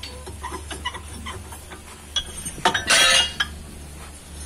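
Steel hammer plates and rotor discs of a sand crusher's hammer mill being handled by hand during a hammer change: scattered metal clinks, some with a short ring, and a louder scrape of metal on metal about three seconds in, over a steady low hum.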